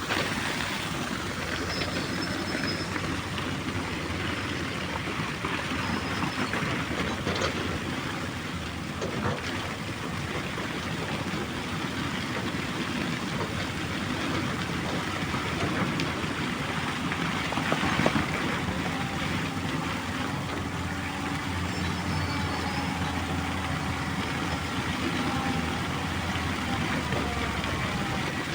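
JCB backhoe loader's diesel engine running steadily, with a few short knocks, the loudest about 18 seconds in.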